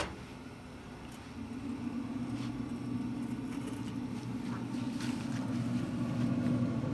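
Pellet smoker running with a steady low fan-motor hum that comes up about a second and a half in, with a few faint clicks as the lid is handled.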